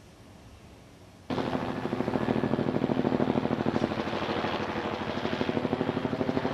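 Helicopter flying overhead, its rotor chopping in rapid, even beats; the sound cuts in about a second in.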